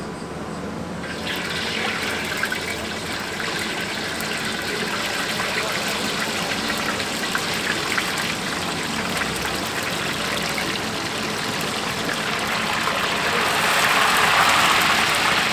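Stinky tofu deep-frying in a wok of hot oil: a dense, steady sizzling and bubbling that starts about a second in and swells louder near the end.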